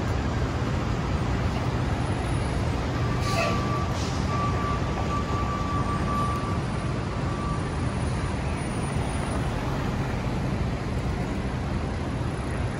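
Busy city avenue traffic: the steady rumble of car, bus and truck engines. About three seconds in there is a short burst of hiss, then a thin, steady high squeal that holds for about four seconds.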